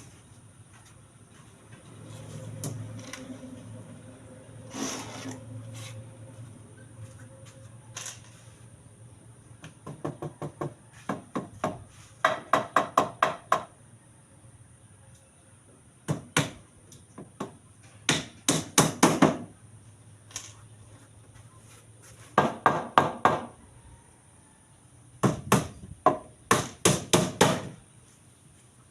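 Hammer blows struck in quick runs of several strokes, with pauses of a few seconds between runs and a few single knocks in between.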